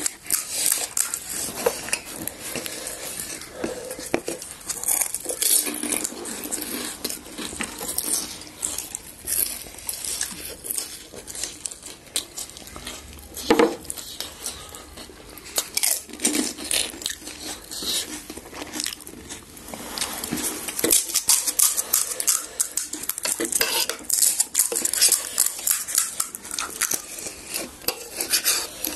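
Dishes and cutlery clinking and clattering in many irregular clicks, with one louder clack about halfway through, as panipuri is served and eaten.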